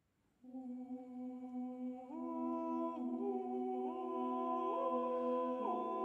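Male a cappella ensemble of six voices singing a Hungarian folk song arrangement: held chords begin about half a second in, and the voices move to new notes one after another every second or so.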